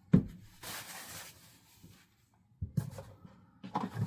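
Plastic vacuum cleaner parts and packaging handled: a sharp knock at the start, a brief rustle about a second in, then several light knocks and rustling near the end.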